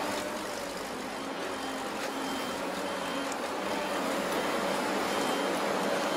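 Heavy earthmoving machinery running steadily, with a faint high beep repeating about once a second, like a backup alarm.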